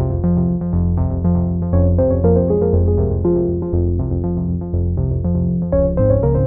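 Background music: synthesizer and keyboard notes with a steady beat.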